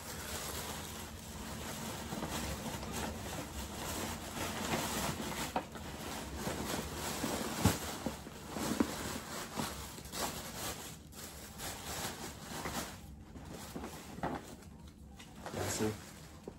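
Paper gift bag rustling and crinkling as birthday gifts are packed into it, with small handling knocks and one sharper click about halfway through.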